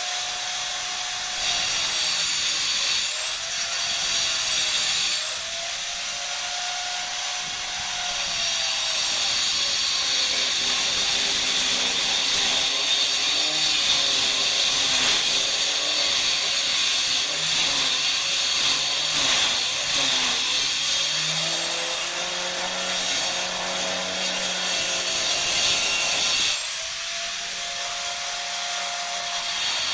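Electric motor running with a high whine over a steady hiss, its pitch sagging and recovering several times as if loaded.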